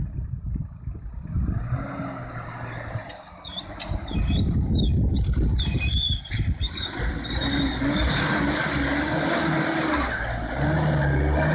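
Mitsubishi Montero (Pajero) 4x4's engine revving under load, its note rising and falling as it crawls through a muddy stream crossing, with the tyres churning through mud and water.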